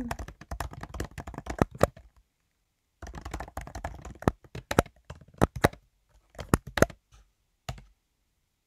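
Typing and clicking on a computer keyboard: quick, irregular taps, a pause of about a second, then another run of taps.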